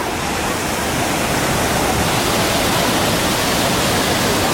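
Large waterfall's water crashing down, a steady, loud rushing roar.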